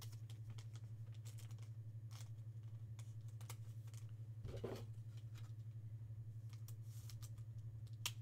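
Faint scattered clicks and a soft rustle about four and a half seconds in, from trading cards being handled, over a steady low electrical hum.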